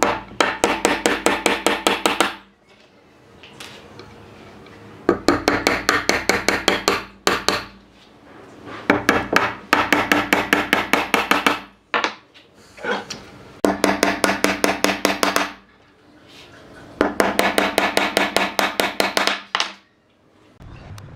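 Claw hammer driving nails into the edge of a pine board: five runs of quick, light blows, about six a second, each run lasting two to three seconds with short pauses between.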